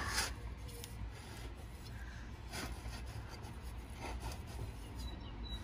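A glazed plant pot scraping across a wooden shelf as it is pushed back into place, loudest at the very start. A few faint knocks and rubs of handling follow.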